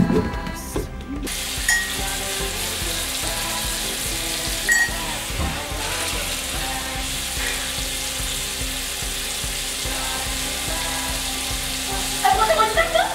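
Water running steadily in a hiss, starting about a second in and stopping near the end, with soft background music underneath.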